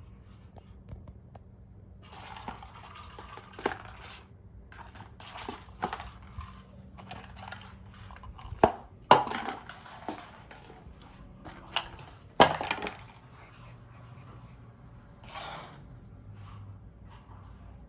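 A cat food puzzle feeder being pawed and knocked about: irregular rattles and clatters, with a few sharp, loud knocks around the middle.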